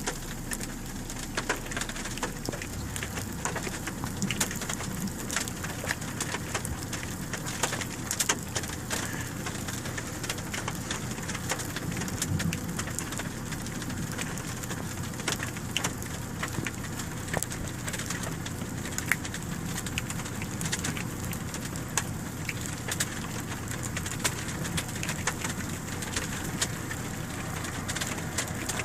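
Rain falling steadily, with many scattered drop impacts ticking, over a steady low hum.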